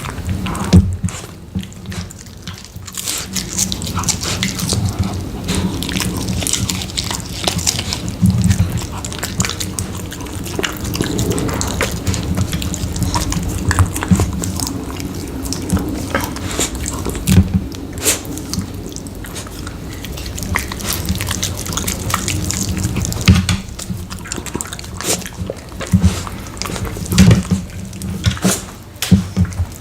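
Dog eating rotisserie chicken close to the microphone: wet licking and smacking with frequent chewing clicks, and louder snaps here and there.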